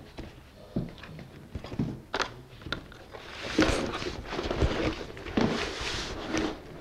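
Thin wood laminations being handled and fed into a lamination bag: a few sharp knocks in the first few seconds, then several seconds of scraping and rustling.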